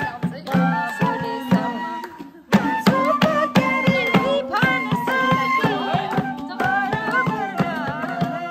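Live folk music played for dancing: a bamboo flute carries the melody over a hand drum keeping a quick, even beat, with voices singing along. The music briefly drops out a little past two seconds in, then comes straight back.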